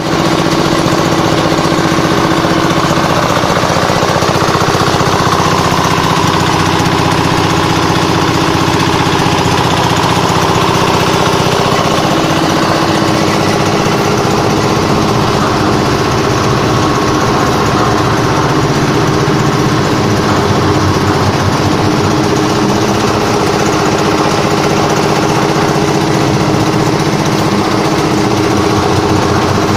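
The red stationary engine that belt-drives a 350-litre concrete pan mixer, running steadily, its pitch shifting slightly about twelve seconds in.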